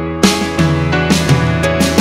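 Background music for a slideshow. A quieter passage gives way suddenly, a moment in, to a louder, fuller section.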